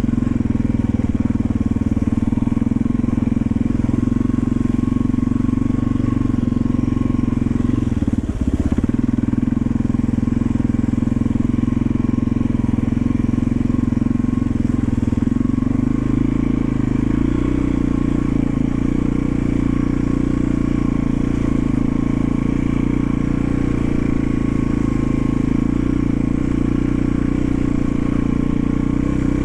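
1991 Yamaha XT350's single-cylinder four-stroke engine running steadily under way. There is a brief knock about eight seconds in, and the engine note changes about halfway through.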